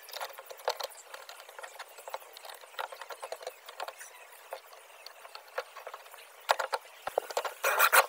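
Scattered light clicks, taps and rubbing from hands handling a refrigerator's metal door frame and its foil-covered panel, with denser, louder knocks and rattling near the end.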